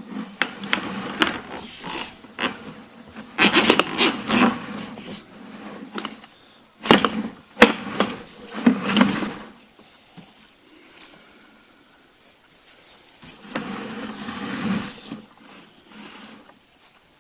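Irregular knocks, clicks and scraping in three clusters with quieter gaps between: handling noise as sewer-inspection gear is worked at the pipe access.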